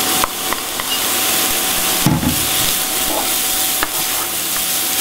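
Diced carrot, celery and leek tipped into a pot of onions and garlic frying in olive oil, then stirred with a wooden spoon: a steady sizzle, with a few sharp knocks and scrapes of the spoon against the pot.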